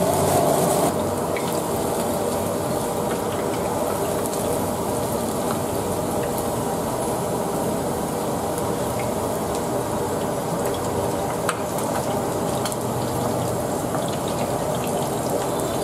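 Chicken feet deep-frying in a wok of hot oil: a steady bubbling sizzle, with a few faint clicks.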